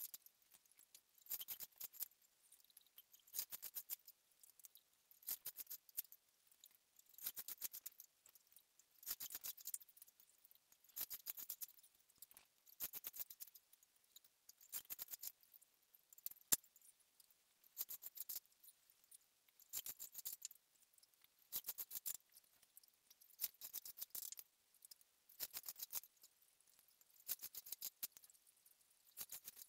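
Fine chair cane rasping as a strand is drawn through the woven seat, in faint scratchy strokes about one every two seconds, with a single sharper click about halfway.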